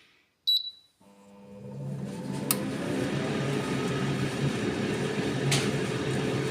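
Air fryer starting up: a short beep as the timer is set, then its fan spins up over about a second and runs with a steady whir and low hum. Two sharp clicks sound partway through.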